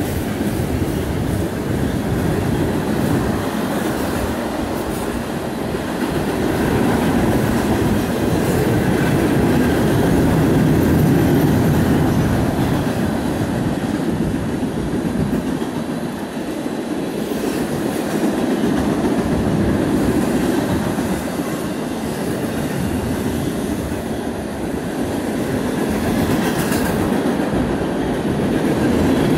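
A long string of autorack freight cars rolling past close by, a steady rumble of steel wheels on the rails that swells and eases as the cars go by.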